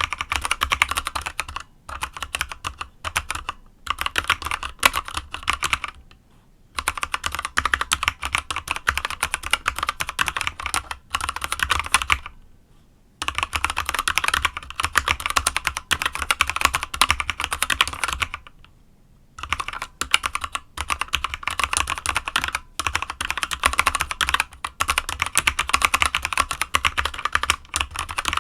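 Fast typing on a Motospeed CK61 mechanical keyboard with unlubricated Kailh Box Dark Yellow linear switches: a dense run of key clacks, broken by short pauses about six, twelve and nineteen seconds in.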